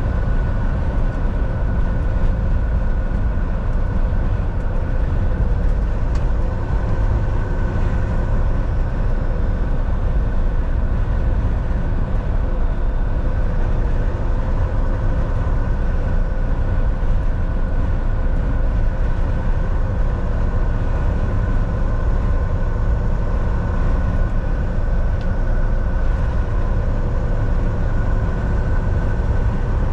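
Volvo semi truck driving at steady speed: a constant low rumble of engine and road noise with a faint steady whine over it.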